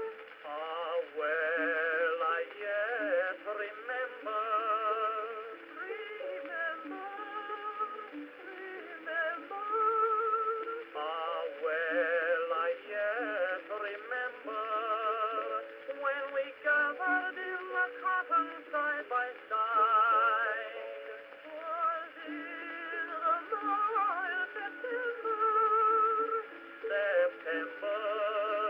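Acoustic-era soprano and tenor duet with orchestra playing back from an Edison Blue Amberol wax-type cylinder on a cylinder phonograph: thin, narrow-range sound with wavering vibrato notes.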